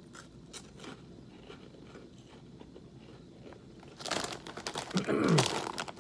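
Faint crisp crunching and chewing of a baked cheese puff, then a snack bag crinkling loudly for about a second and a half near the end as it is handled.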